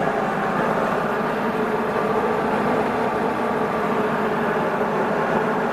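Hobart 5701D meat and bone band saw running steadily with its new blade, over the continuous hum of the three-phase converter that powers it.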